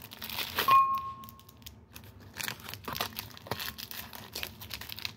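A cookie wrapper being crinkled and torn open by hand, with irregular crackles. About a second in comes a louder knock with a short ringing note that fades away.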